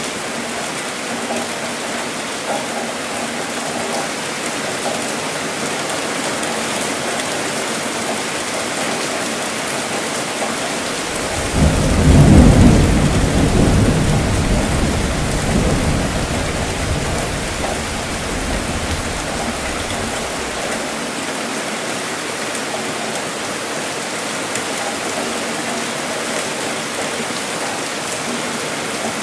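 Steady heavy rainfall with a deep thunder rumble that breaks in suddenly about a third of the way through, swells, and dies away over several seconds.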